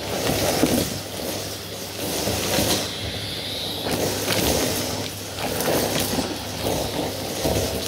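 Henry Xtra cylinder vacuum cleaner running with a steady motor hum while its floor head is pushed back and forth over a shag rug, picking up confetti and fluff. The suction noise swells and fades with each stroke, about every second and a half.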